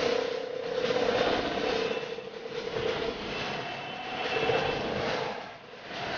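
Auto-rickshaw's small engine running while it drives through street traffic, heard from on board; the engine note swells and eases off several times and drops away briefly near the end.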